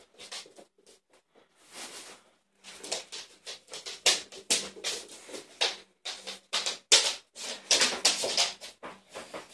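Neapolitan mastiff puppies wrestling on a fabric dog bed: irregular scuffling, rustling and scrabbling, sparse at first and much busier from about two and a half seconds in.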